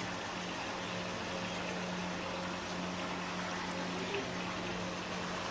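Steady hiss and low hum around a large pot of bubbling siri paye gravy as a perforated ladle is worked through it, with faint liquid sounds from the broth.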